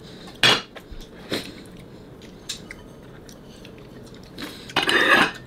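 Eating at a table: chewing, with a few short clinks of cutlery and dishes and a louder clatter near the end as a ceramic bowl is set down on a plate.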